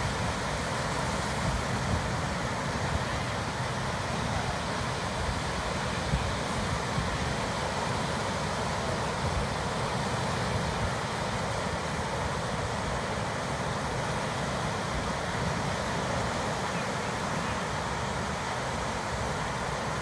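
Ocean surf breaking and washing over a rocky shore: a steady rushing of water with a low rumble underneath and small swells of louder wash now and then.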